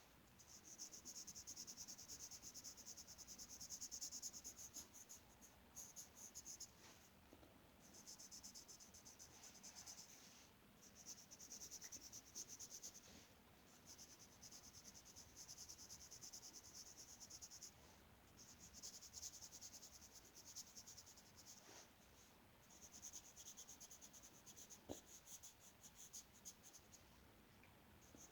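Faint, rapid back-and-forth scratching of a colouring tool on paper, in runs of a few seconds with short pauses between.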